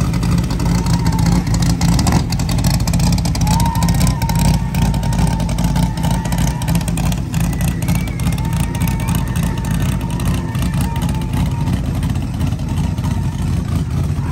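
Engine of a lifted Toyota Land Cruiser 40-series pickup rock crawler running with a loud, low, steady rumble as the truck pulls away slowly.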